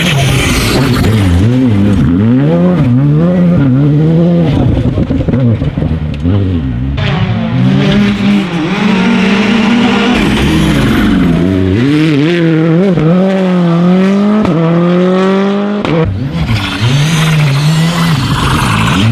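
Rally cars at full speed on a gravel stage, one pass after another, including a Hyundai i20 and a Škoda Fabia. Each engine revs hard and drops sharply with gear changes and lifts, over the noise of tyres on loose gravel.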